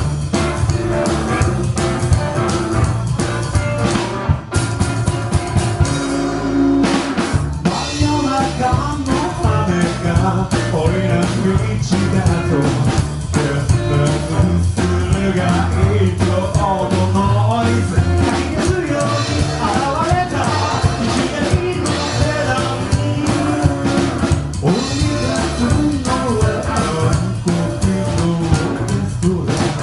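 Rockabilly band playing live: drum kit and electric guitar, with a man or woman singing from about eight seconds in. The music pauses briefly on a single held low note a few seconds in before the full band comes back.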